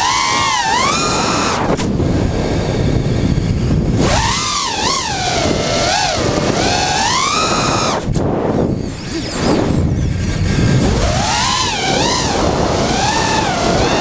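Schubkraft 2206 brushless motors spinning DAL 5040 propellers on an FPV racing quadcopter, heard from its onboard camera: a high whine whose pitch rises and falls constantly with the throttle. The whine cuts out briefly about two seconds in and again about eight seconds in, with wind rushing over the microphone underneath.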